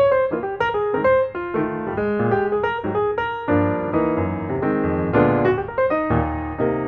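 Background music: a piano playing a continuous run of notes.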